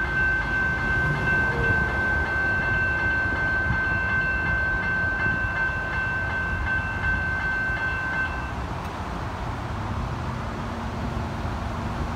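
Level-crossing warning bells ringing steadily over the low rumble of an X'Trapolis electric suburban train running away from the crossing. The bells stop abruptly about eight seconds in as the crossing clears and the boom gate starts to lift.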